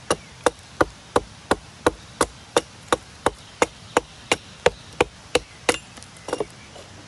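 Hatchet chopping into the top face of a log, hewing it flat: quick, even strokes about three a second that stop about six seconds in, followed by a couple of softer knocks.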